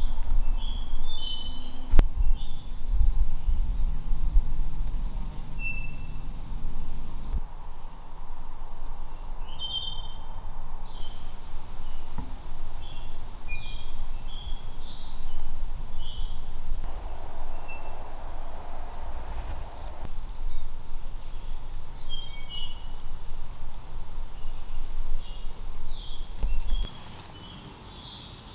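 Outdoor woodland ambience: a steady, pulsing high insect trill with scattered short bird chirps. Under it runs a low rumble that cuts off suddenly near the end. A single sharp click sounds about two seconds in.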